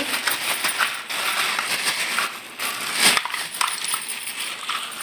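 Broken clay pot shards and lumps of fuller's earth (multani mitti) clinking, scraping and crunching against each other with a plastic bag rustling as the pieces are tipped out onto the pile, with a louder crackle about three seconds in.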